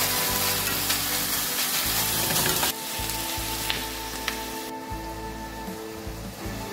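Ground beef and diced onions sizzling in a stainless steel skillet while a spatula stirs them, over soft background music. The sizzle drops off abruptly a little under three seconds in.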